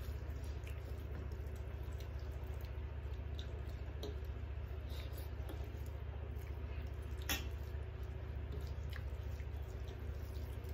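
Wet squishing of rice and curry being mixed and eaten by hand off steel plates, with soft scattered ticks and one sharper click about seven seconds in, over a steady low hum.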